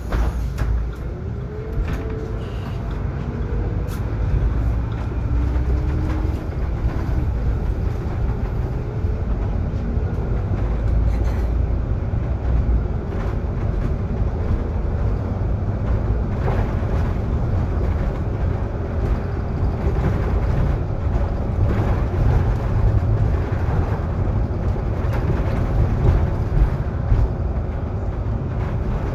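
Interior ride sound of a Solaris Urbino 18 IV articulated city bus under way: a steady low rumble of drivetrain and road, with a few short clicks and knocks scattered through it.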